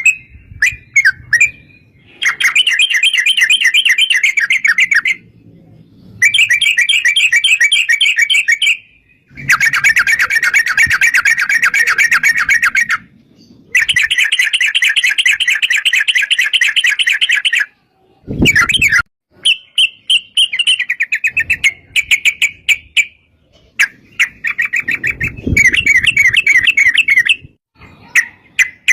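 Yellow-vented bulbul (trucuk) song: long runs of rapid, chattering repeated notes, several seconds each with short pauses, then shorter bursts. A brief knock sounds about two-thirds of the way through.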